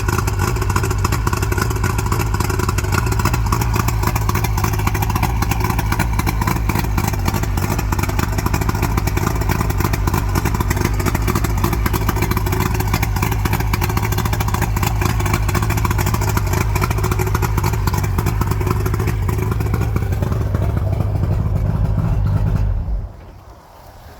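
Outboard motor running steadily, then shut off near the end.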